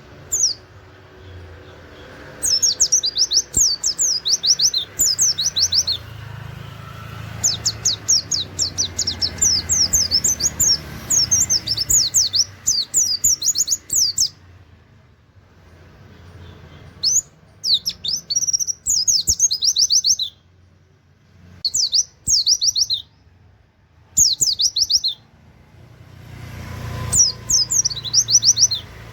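White-eye (pleci) singing in rapid-fire runs of sharp, canary-like 'wit wit' notes, several bursts of a few seconds each with short pauses between.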